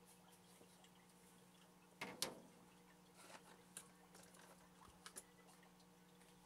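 Dry rustle and crackle of aspen wood shavings stirred by a hand, brief, about two seconds in, followed by a few faint light ticks over a faint steady hum.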